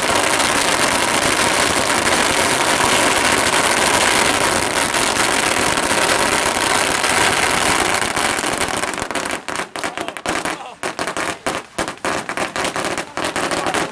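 A large string of firecrackers going off in one dense, unbroken crackle. About nine seconds in it thins to scattered single bangs.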